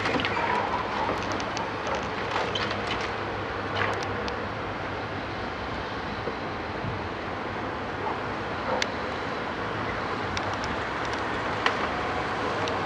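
Hydraulic excavator's diesel engine running steadily with a constant low hum, over which roof timbers crack, knock and drop as the sorting grab tears at the beams. The sharpest cracks come about four, nine and twelve seconds in.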